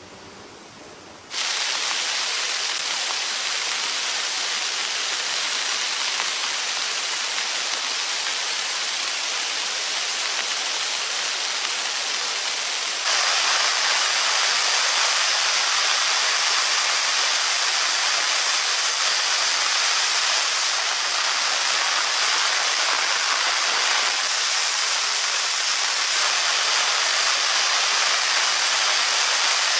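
Heavy rain falling steadily, an even dense hiss. It comes in abruptly about a second in and gets louder at about thirteen seconds.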